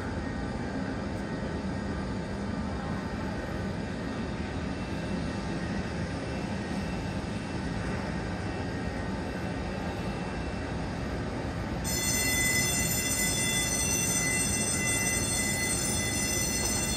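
Steady rumbling noise of an airliner being pushed back by an aircraft tug. About twelve seconds in, a high steady whine of several tones sets in suddenly and the sound gets louder.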